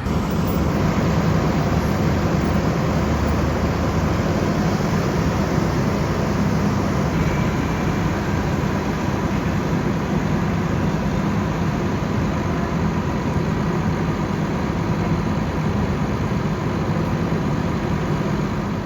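Bus engine running with a steady, loud, even drone and a faint constant tone.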